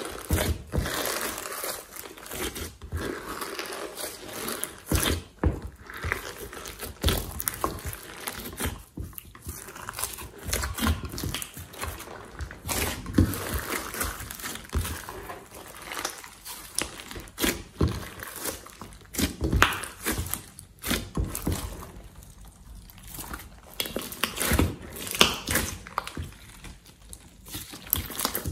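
Glossy slime being kneaded and squeezed by hand in a glass dish, giving a continuous run of irregular wet clicks, pops and crackles as it stretches and folds.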